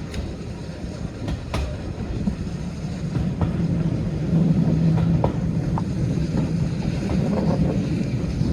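Steady low rumble of a steam-hauled heritage railway carriage running along the track, heard from inside the carriage, with a few sharp clicks from the wheels and running gear.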